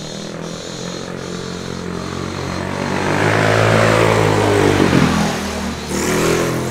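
A motor scooter rides up the lane and past, its engine growing louder and then dropping in pitch as it goes by about five seconds in. A brief, sharp noisy burst follows about a second later.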